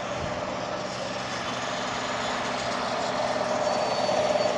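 A road vehicle's engine running steadily with a low hum, slowly growing louder.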